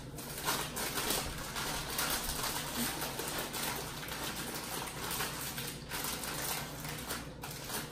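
Plastic snack bags crinkling and rustling as they are handled, a dense, continuous crackle.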